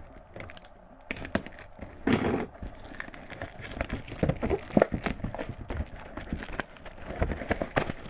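A cardboard box of trading cards being opened and handled by hand: irregular crackling, knocks and scraping of card packaging.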